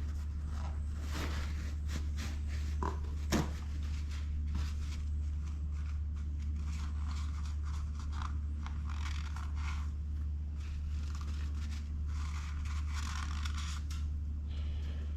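Paper shop towel rubbing and rustling as the oil filter cavity is wiped dry, in scratchy irregular strokes, with a couple of sharp knocks about three seconds in, over a steady low hum.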